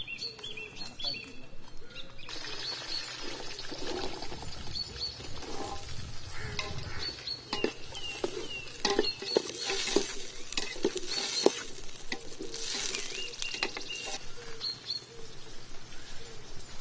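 Shallots sizzling in hot sesame oil in a large metal pot over a wood fire. The sizzling sets in about two seconds in and is stirred with a flat metal ladle that scrapes and knocks against the pot. Birds chirp throughout.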